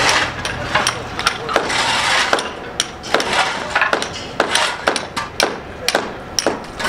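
Hammers knocking out brick and plaster during demolition: an irregular run of sharp knocks, about two or three a second, over a haze of rubble noise.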